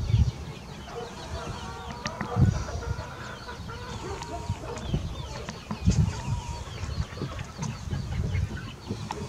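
Chickens clucking in short, scattered calls, with low rumbling bursts on the microphone that are louder than the calls, the strongest at the start and about two and a half and six seconds in.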